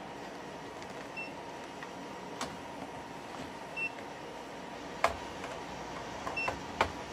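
Steady whir of rack equipment fans, with a short, high electronic beep repeating about every two and a half seconds. A few sharp clunks from handling the UPS battery pack, the loudest about five seconds in and again near the end.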